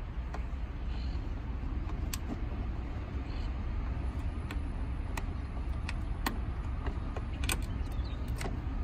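Sharp plastic clicks and ticks, about half a dozen at uneven spacing, as a flathead screwdriver pries at the tabs of a plastic air intake duct, over a steady low rumble.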